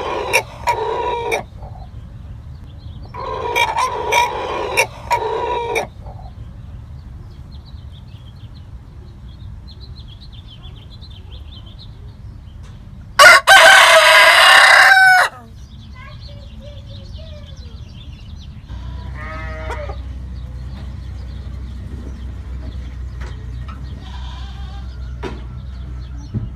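Roosters calling: two bursts of rapid, broken clucking in the first six seconds, then one very loud crow lasting about two seconds about halfway through, and a fainter short call a few seconds after it.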